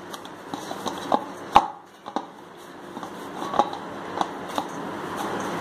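Hands kneading oiled puri dough in a stainless steel bowl: pressing and rubbing sounds with a few irregular knocks as the dough and hand bump the bowl, the loudest about a second and a half in.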